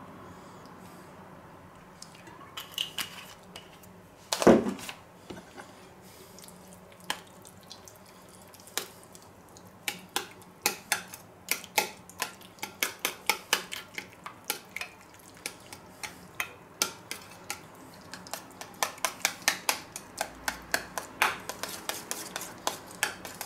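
Metal spoon stirring oil into tomato paste in a small stainless steel bowl, clinking rapidly against the bowl's side, several clinks a second from about ten seconds in. A single sharp knock sounds about four seconds in.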